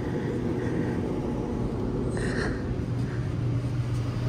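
Steady low mechanical hum from a passenger train standing at the platform, with a brief soft noise about two seconds in.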